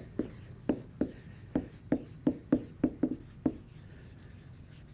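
Someone writing by hand: a quick, irregular run of about ten short tapping strokes of the pen on the writing surface, stopping about three and a half seconds in.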